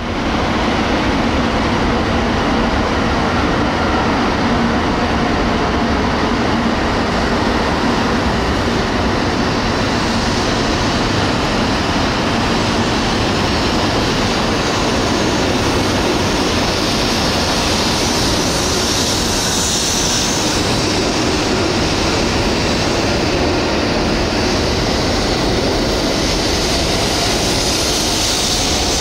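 E7 series Shinkansen train pulling out along the platform and gathering speed: a steady, loud rumble of wheels and running gear, with a brighter hiss building about two-thirds of the way in.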